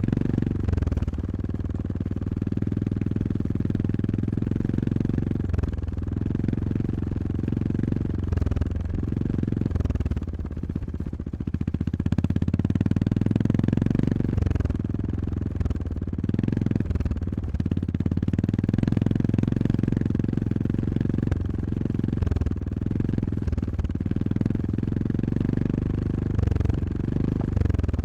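Honda GB350S air-cooled single-cylinder engine running as the motorcycle is ridden, the throttle repeatedly eased off and reopened so the engine note drops and swells several times.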